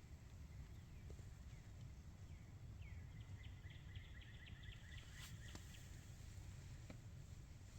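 Quiet outdoor ambience with a low steady rumble, scattered faint bird chirps, and a small songbird's trill of quick repeated high notes lasting about three seconds from around the middle. A single sharp click sounds partway through the trill.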